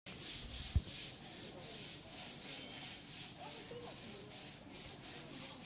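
A high-pitched insect drone that pulses evenly about three times a second, with a single low thump just under a second in.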